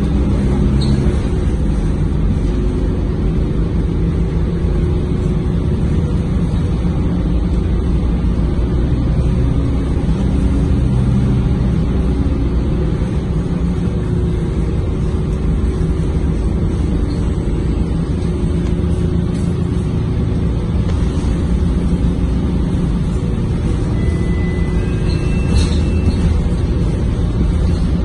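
Inside the cabin of a Mercedes-Benz OC500LE single-deck bus under way: steady engine drone and road noise, with a few brief high tones near the end.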